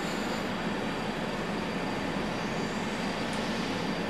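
Steady background hiss and hum with no speech, with a faint click about three seconds in.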